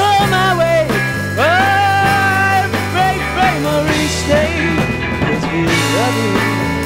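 Rock band instrumental break: a lead guitar plays notes that bend and slide, over a steady bass line and drum kit.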